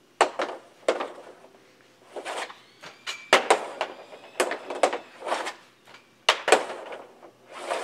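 Ice hockey stick and pucks on synthetic ice tiles during one-handed wrist shots: a series of sharp clacks and brief scrapes as the blade pulls each puck in and fires it, with pucks striking the net.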